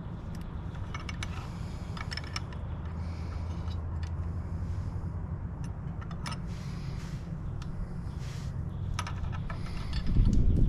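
Wrench clinking on the shift linkage bolts as they are tightened: scattered sharp metallic clicks, several in quick pairs, over a steady low rumble, with a louder low rumble rising near the end.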